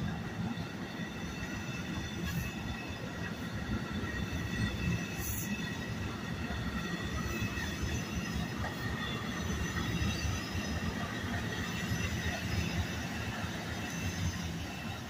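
NJ Transit bilevel passenger coaches rolling past as the train pulls out: a steady rumble of wheels on rail, with faint high-pitched ringing tones above it.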